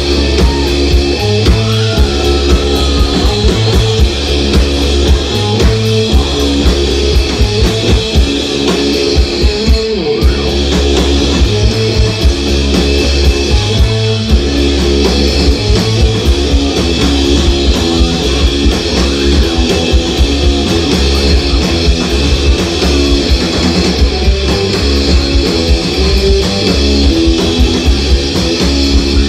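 Live rock band playing loud: electric guitar, bass and drum kit in a steady, driving passage, with fast drum hits and bass notes changing about every second.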